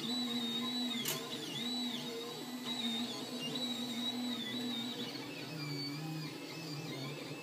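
Solidoodle 3D printer running a print: its stepper motors whine in pitched tones that shift every second or so as the print head changes moves, with one sharp click about a second in.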